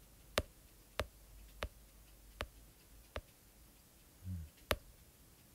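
A faint series of about six sharp clicks, irregularly spaced less than a second apart, with a brief low sound just before the last click.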